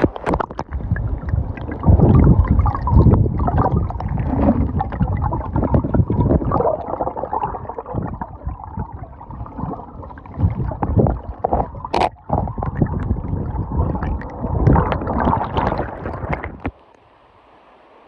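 Waterfall plunge pool heard through a phone microphone at and under the water surface: muffled gurgling and sloshing with irregular knocks and bubbles, and a sharp click about twelve seconds in. Near the end it cuts off abruptly to a faint steady hiss.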